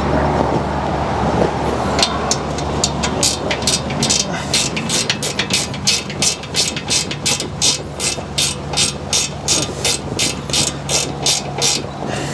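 Hand ratchet wrench clicking steadily as a bolt is backed out, about three clicks a second, starting about two seconds in and stopping near the end.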